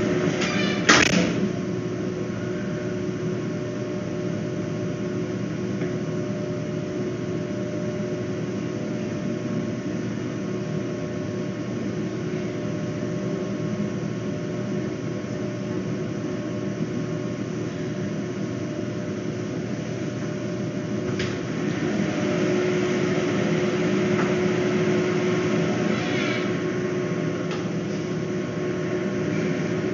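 Steady machine hum with a few steady tones, and a sharp knock about a second in. The hum grows a little louder and hissier for a few seconds past the middle.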